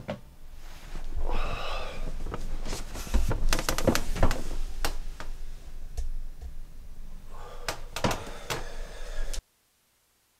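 Scattered knocks, clicks and thumps of someone moving about a small room, denser in two clusters. The sound cuts off suddenly about nine seconds in.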